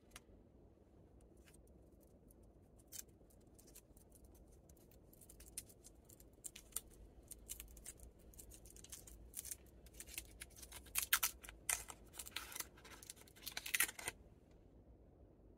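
Foil candy wrapper crinkling and crackling as a stick of chewing candy is unwrapped by hand. A few scattered crinkles at first, growing busier and louder in the second half, and stopping about a second and a half before the end.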